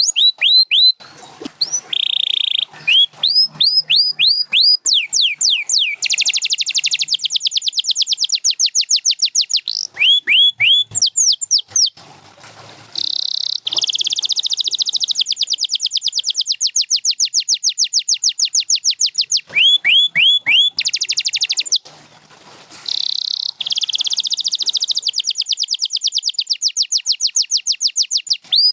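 Domestic canary singing a long song built from runs of identical repeated notes: quick falling whistles alternating with long, very fast rattling trills. It switches from one run to the next and pauses briefly twice.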